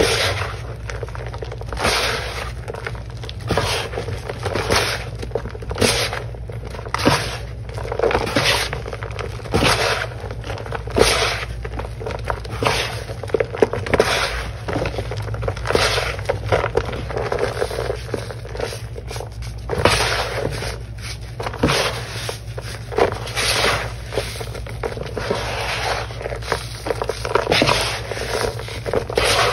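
Hands squeezing and kneading chunks of ripped sponge coated in damp blue Ajax cleanser powder and paste: a continuous run of irregular gritty squeezes and scrapes, one or two a second, over a low steady hum.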